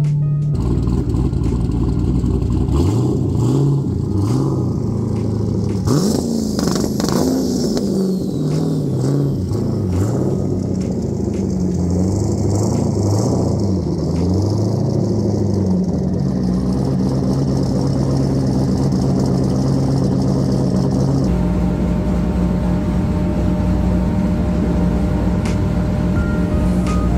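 Twin-turbocharged LS7 V8 of a C6 Corvette Z06 running and revving, its note rising and falling again and again, then holding a steady pitch for the rest of the time.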